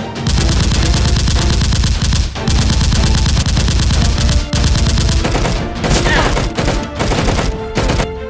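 Rapid automatic gunfire in long bursts, broken by short pauses about two seconds in, halfway through and near the end, with faint music underneath.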